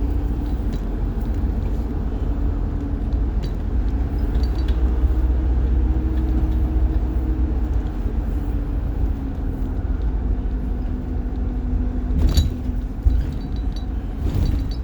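The rear-mounted diesel engine of a 1990 Blue Bird All American school bus running, heard from inside the bus as a steady low rumble with a faint hum that drifts slightly in pitch. A couple of sharp clicks come near the end.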